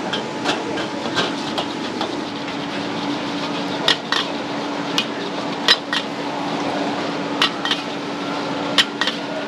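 A metal wok ladle clanks and scrapes irregularly against a charcoal-fired iron wok as noodles are stir-fried, with sharp strikes standing out over a steady rushing noise. A steady low hum joins about two seconds in.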